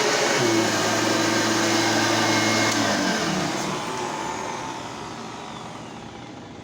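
Hoover Elite 5.2-amp upright vacuum cleaner running at full speed, then switched off about three seconds in. Its motor winds down with a falling whine, getting steadily quieter.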